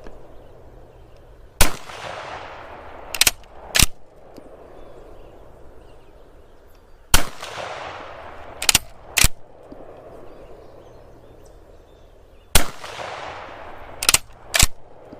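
Gunshots in a repeating pattern, three times over: one loud shot followed by a long echo that fades away, then about a second and a half later two sharper cracks about half a second apart.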